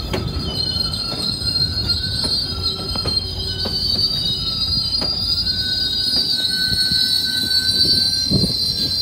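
MBTA commuter rail passenger coaches rolling past close by, their wheels squealing in a high, steady whine, with irregular clicks of the wheels over the rail joints.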